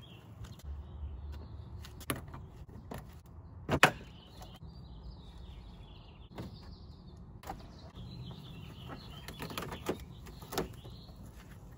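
Plastic push clips on a Honda Civic's radiator cover being pried out with a clip remover: a series of short sharp clicks and snaps, the loudest about four seconds in.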